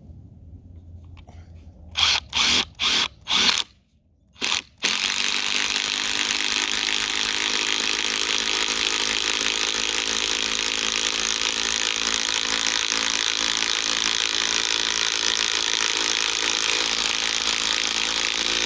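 Hart 20V 3/8-inch cordless impact wrench driving a lag bolt into wood with a 1/2-inch socket: five short trigger bursts, then about fourteen seconds of continuous hammering as the bolt sinks.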